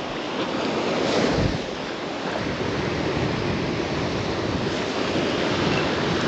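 Choppy surf washing and breaking against the jetty's rock blocks, with wind buffeting the microphone. It is briefly louder about a second in.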